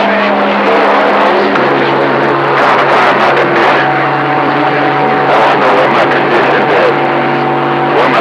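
CB radio receiver hissing with heavy static and the steady whistles of several overlapping carriers on a crowded band. One whistle slides down in pitch at the start and another steady tone comes in about four seconds in.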